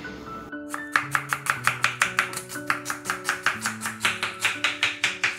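Knife chopping a red onion on a plastic cutting board: rapid, evenly spaced strokes, about six a second, starting about a second in.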